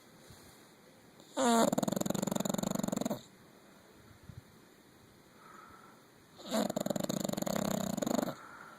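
English bulldog snoring: two long, rattling snores about five seconds apart, each lasting nearly two seconds, with quiet breathing between them.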